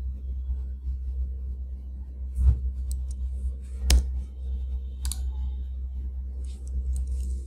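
A handful of sharp computer mouse and keyboard clicks over a steady low hum, the loudest about four seconds in.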